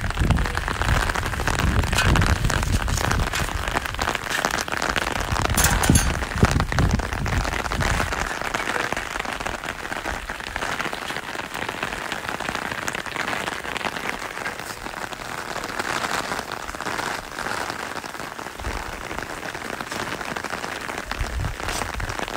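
Rain falling on a fabric umbrella, heard from underneath: a dense, steady spatter of drops on the canopy. A low rumble sits under it for roughly the first eight seconds.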